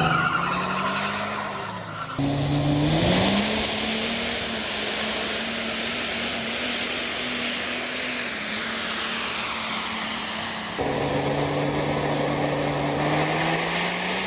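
A vehicle engine revving and holding high revs with tire squeal, in clips cut together abruptly about two seconds in and again near eleven seconds; after each cut the engine's pitch climbs.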